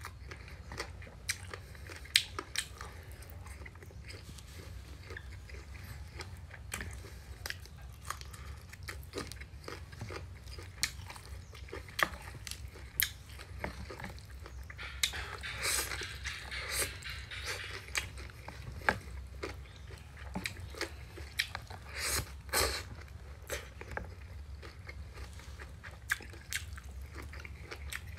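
A person chewing and biting into bún thịt nướng (rice vermicelli, grilled pork and crisp fried spring rolls), with frequent sharp clicks of chopsticks against the plate.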